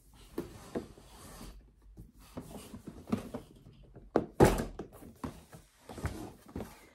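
Handling noise: scattered knocks, rubbing and light clatter as things are shifted and turned about, with one louder thump a little past halfway.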